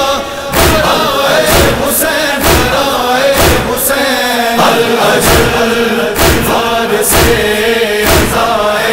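Male voices chanting an Urdu noha, a Shia lament, in chorus, with a heavy thump about once a second in time with the chant: the beat of matam, chest-beating.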